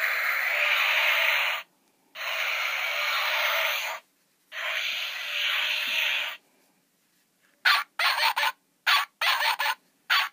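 Sound chips in toy animal figures playing recorded animal noises through a tiny, tinny speaker: three long calls one after another, then a quick run of short repeated bursts near the end.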